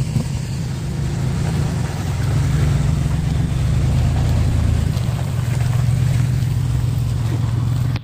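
Pickup truck engine idling close by, a steady low hum.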